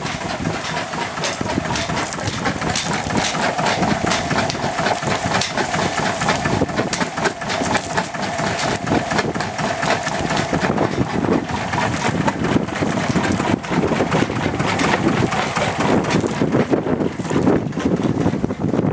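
Volvo Penta MD1B single-cylinder inboard diesel running steadily with a rapid, even beat.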